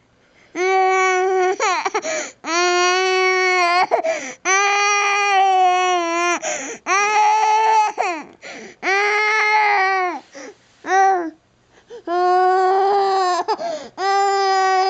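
A baby crying hard: a run of loud wails, each about a second long and held at a steady high pitch, broken by short catches of breath, with a longer pause about eleven seconds in.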